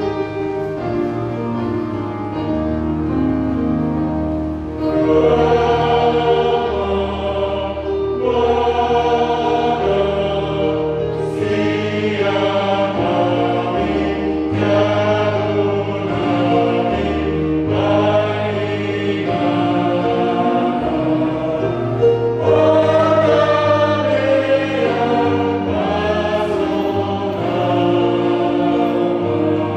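Church congregation singing a hymn together with keyboard accompaniment. Sustained bass notes lead for the first few seconds, then the voices come in fuller, in phrases a few seconds long.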